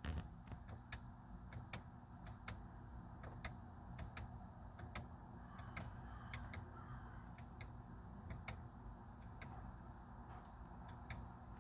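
Faint, evenly spaced clicks, a little more than one a second, from the driver information button of a 2008 Chevrolet Uplander being pressed over and over to scroll through the dashboard display toward the oil life reading.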